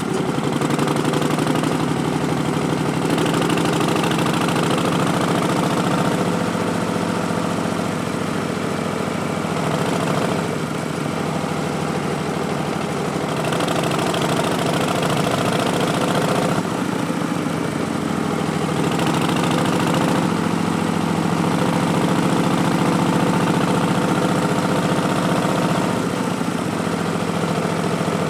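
Harley-Davidson Street Bob's Milwaukee-Eight 107 V-twin running through Vance & Hines Twin Slash slip-on mufflers while riding, its note shifting every few seconds as the throttle and gears change.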